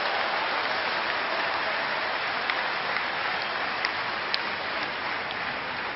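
A large audience applauding: a dense, steady clatter of clapping that slowly dies down.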